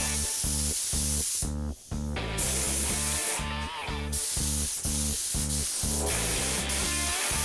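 Air spray gun hissing steadily as it sprays epoxy primer onto a car body panel, cutting off briefly twice in the first four seconds. Background music with a steady beat plays throughout.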